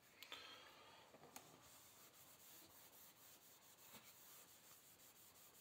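Faint rubbing of a whiteboard being wiped clean by hand, scratchiest in the first second or so, with a couple of light taps against the board.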